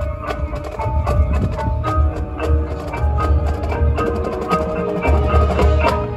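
Marching band front ensemble playing a fast passage of mallet keyboards with sharp wood-block-like clicks and ringing bell tones over low bass, breaking off sharply near the end.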